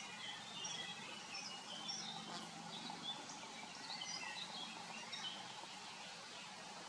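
Several small birds chirping and singing in short, quick phrases over a faint steady background hiss, with a low steady hum underneath.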